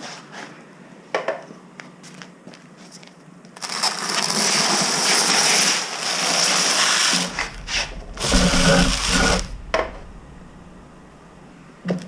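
Spray paint hissing in two long bursts onto brake calipers, with scattered clicks and knocks before them; the second burst has some low rumble and clatter in it.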